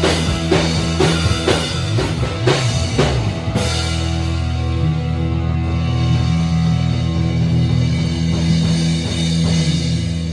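Rock trio of guitar, drum kit and bass guitar playing a steady beat. About three and a half seconds in, a cymbal crash lands and the band holds a ringing final chord over sustained bass.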